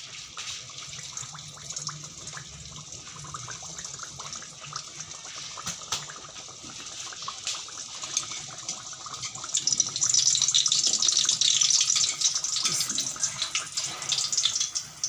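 Bhatura dough deep-frying in hot oil, sizzling and bubbling steadily while a wire skimmer presses it down. The sizzle grows clearly louder about ten seconds in.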